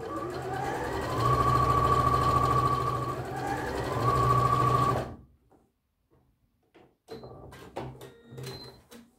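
Bernina 38 electronic sewing machine stitching down bias binding. Its motor whine rises in speed, holds high for about two seconds, slows, speeds up again, then stops about five seconds in. A few short, quieter sounds follow near the end.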